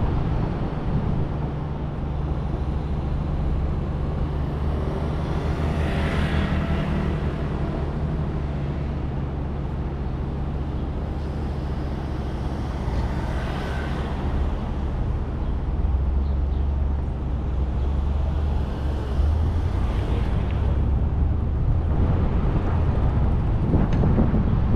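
Car driving through city streets: a steady low engine hum and road noise, swelling briefly three times, about 6, 13 and 20 seconds in.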